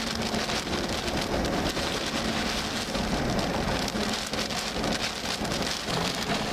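Rain beating on a moving vehicle: a dense, steady patter of drops with a faint steady hum underneath.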